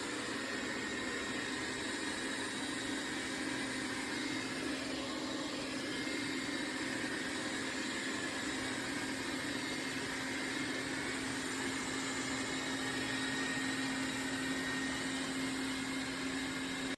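Dreame L10s Ultra robot vacuum and mop running: a steady motor hum with a constant low tone, unchanging throughout.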